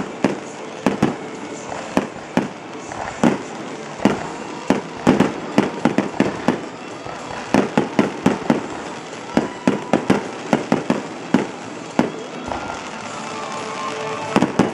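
Aerial firework shells bursting in quick, irregular succession: dozens of sharp bangs, coming fastest in rapid clusters about five and about eight seconds in.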